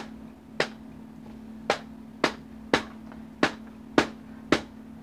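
Safety selector of a Smith & Wesson M&P15 Sport II rifle being snapped by hand between safe and fire: eight sharp metallic clicks about half a second apart. The selector is stiff against its newly reseated detent spring under the new grip, so it has to be struck hard.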